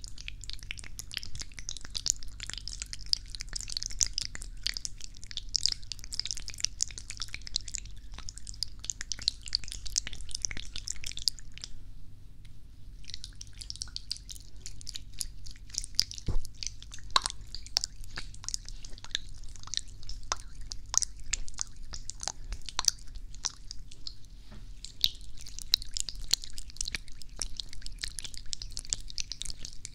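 Hands rubbing and moving right against the ears of a binaural microphone, giving a dense, fine crackling close to the ear. There is a brief pause about twelve seconds in.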